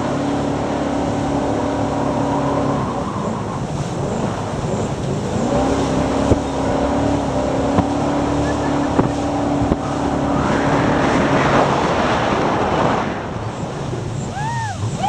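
Jet sprint boat engine running hard with a steady drone. It drops away about three seconds in and comes back about halfway through. Later a loud rushing hiss of water and wind takes over for a few seconds.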